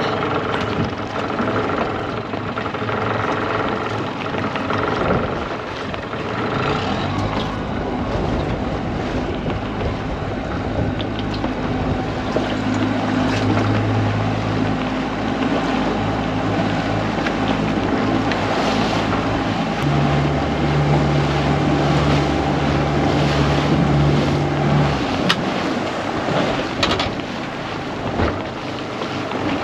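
A small fishing boat's engine running as the boat is moved to re-set its dragging anchor; its note shifts, with a louder, steadier low tone from about 20 to 25 seconds in that then drops away. Wind buffets the microphone over the sound of water.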